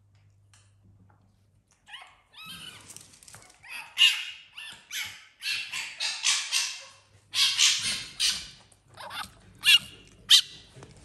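A small animal's rapid, high-pitched chattering squeals, beginning about two seconds in and going on in quick short bursts, loudest near the start and again near the end.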